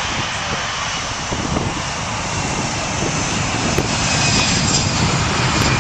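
Jet airliner, an Airbus A319 or A320, on its takeoff roll with engines at takeoff thrust: a steady jet rush that grows slowly louder, with a thin high whine coming in about two-thirds of the way through.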